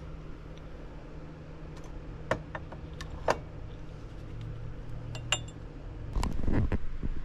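Small clicks and clinks of hard objects being handled and set on a shop shelf, with a louder cluster of knocks and rustling about six seconds in, over a steady low hum.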